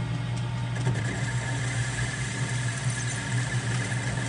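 Metal lathe running while facing the end of a bar of unknown metal: a steady motor and spindle hum with a steady high-pitched squeal from the cut.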